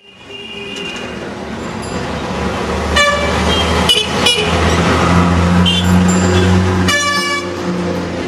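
Busy street traffic with engines running and several vehicle horns honking, a short blast about three seconds in and a longer one about seven seconds in.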